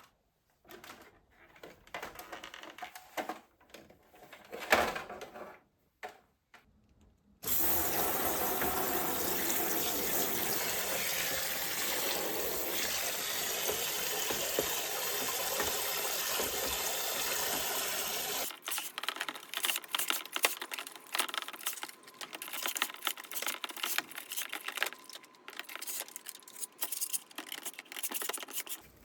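A few scattered clicks and knocks, then water running steadily from a tap for about ten seconds. After that comes irregular splashing and spattering of water until the end.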